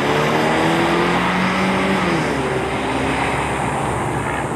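Chevrolet Colorado's 2.5-litre inline-four accelerating away, its pitch climbing and then dropping back about two seconds in at a gear change, with tyre noise, growing gradually fainter as the truck recedes.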